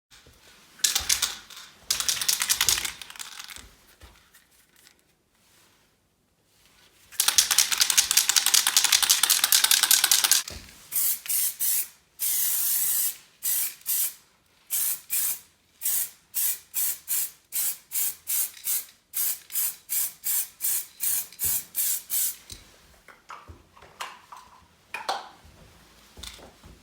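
A sprayer hissing in spurts: a long spray of about three seconds, then a quick run of short spurts at about two a second.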